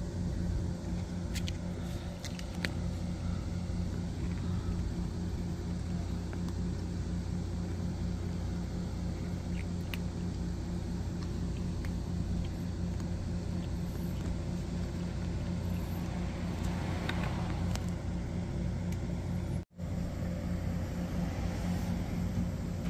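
Steady low mechanical hum that runs unbroken, dropping out for an instant near the end.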